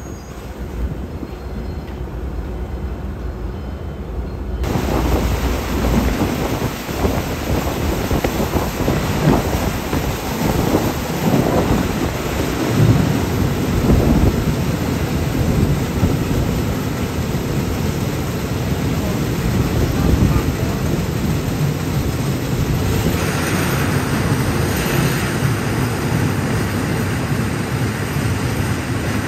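Ordinary passenger train running along the track: a steady low rumble of the carriage with a rushing noise of air and rails. The noise jumps up suddenly about five seconds in and turns hissier near the end.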